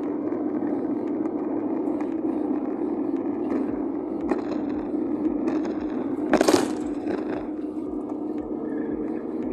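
Car interior noise while driving: a steady drone of engine and road noise heard from inside the cabin, with light clicks and one brief loud scraping rustle about six and a half seconds in.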